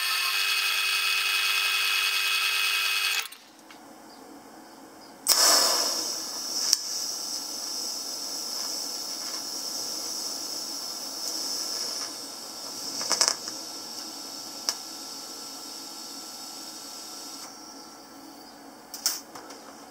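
Metal-cutting bandsaw running through rectangular steel tube with a steady whine, stopping abruptly about three seconds in. About five seconds in, a TIG welding arc starts with a sudden burst and then hisses steadily, with a few brief louder crackles, while steel frame joints are welded.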